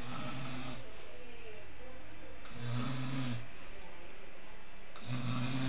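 Someone sleeping and snoring: three snores about two and a half seconds apart, each a low rattling buzz lasting under a second.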